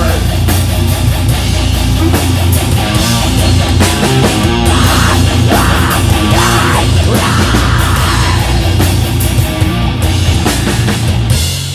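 Live heavy rock band playing an instrumental passage: distorted electric guitars over a drum kit with steady cymbals. The music falls away sharply near the end as the song winds down.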